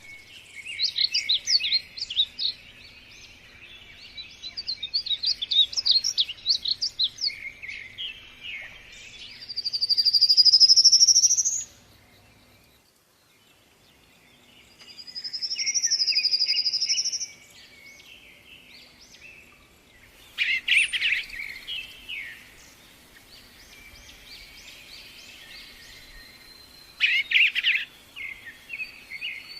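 Lively morning birdsong: rapid trilled phrases, two long loud whistled notes that rise and fall, and bursts of busy chattering calls, with a brief lull partway through.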